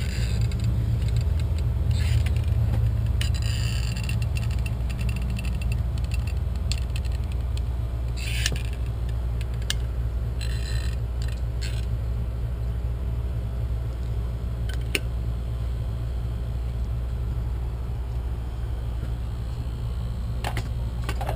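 A few scattered clicks and short scrapes from a caulking gun being worked as caulk is laid around an outlet box, over a steady low hum.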